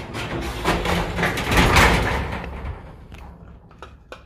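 A garage door being pulled shut: a rumbling slide that builds to its loudest about a second and a half in, then dies away, followed by a few sharp clicks near the end.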